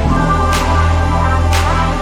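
Background music with a steady beat: deep bass, sustained synth tones and a snare-like hit about once a second.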